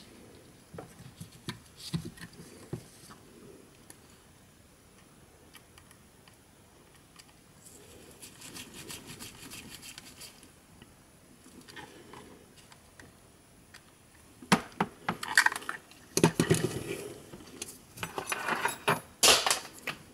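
Small clicks, knocks and rubbing from a JBL Go 2 speaker's plastic housing and circuit board being handled and worked with a screwdriver during reassembly. The sounds are sparse at first, with louder clusters of handling noise in the last six seconds.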